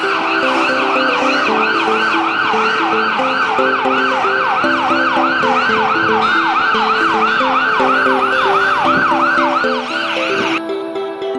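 Police motorcycle siren sounding a fast yelp, about three falling sweeps a second, over background music. The siren cuts off about ten and a half seconds in.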